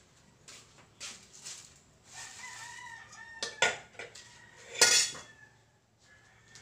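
A rooster crowing in the background, a bending call of about a second, with two sharp clatters, the louder one about five seconds in.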